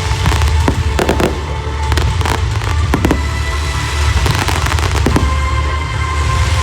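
Fireworks going off in quick succession, with many sharp bangs and crackles, over music with a heavy bass.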